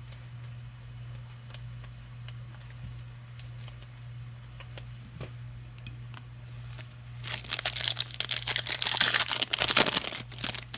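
Faint handling clicks, then a trading-card pack's foil wrapper crinkling loudly as it is torn open, starting about seven seconds in and lasting about three seconds.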